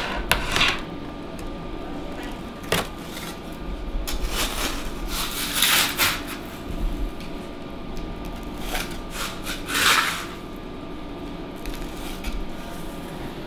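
Hands handling dry clay and fired ceramic pieces on a worktable: scattered scrapes and rustles, loudest in a cluster around the middle and again about ten seconds in, over a faint steady hum.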